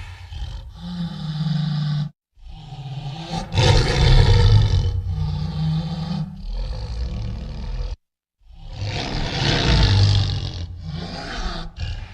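Creature sound-effect roars for the Dinocroc monster: three long, rough roars, each broken off by a brief silence about two seconds and about eight seconds in.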